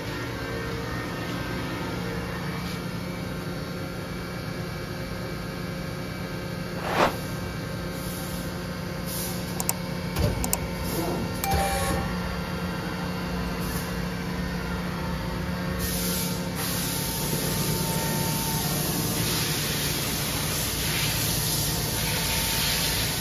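Steady hum of a powered-up DMG Mori Seiki NL 2500/700 CNC turning center, with several steady tones over a hiss. There is a sharp knock about seven seconds in and a few clicks a few seconds later. The hiss grows louder about two-thirds of the way through.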